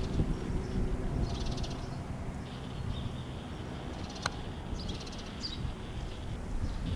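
Robinson R44 Raven II helicopter's six-cylinder piston engine and rotor heard at a distance as a low rumble, fading a little as it flies away. A bird calls a few times over it.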